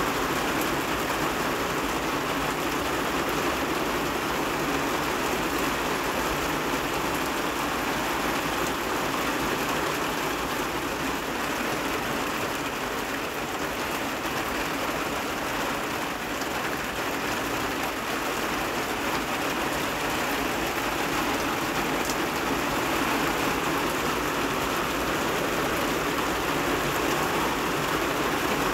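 Rain falling steadily and evenly, a constant hiss of many drops with no thunder.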